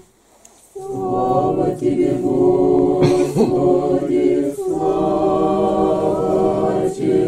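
Unaccompanied Orthodox liturgical chant, sung in long held notes in several phrases with short breaks between, starting about a second in after a brief pause.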